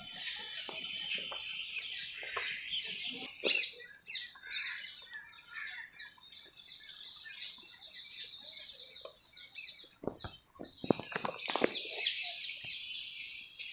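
Many birds chirping and calling in garden trees, with short calls overlapping and growing busier near the end. A few sharp knocks sound about ten to twelve seconds in.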